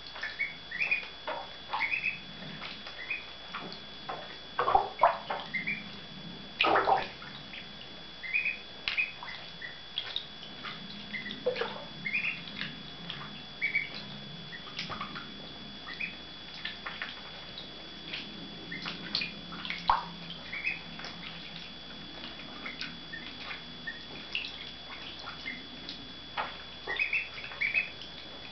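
Week-old ducklings peeping in short high chirps, often in quick runs, while they swim and dive, with water splashing and sloshing now and then. A faint steady high whine runs underneath.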